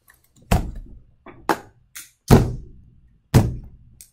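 Cheap off-brand toy fingerboard (a mini skateboard) slammed down hard on a tabletop: three loud thunks about a second apart, with lighter knocks between them, each hit dying away quickly.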